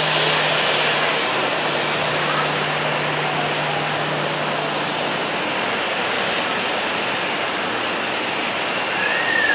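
A Boeing 737-800's CFM56 jet engines at taxi idle: a steady rushing roar with a faint whine. A low steady hum underneath fades out about halfway through.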